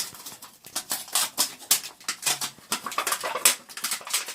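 Irregular small clicks and rustling from toilet repair parts being handled by hand: the wax seal with its plastic flange and the closet bolts.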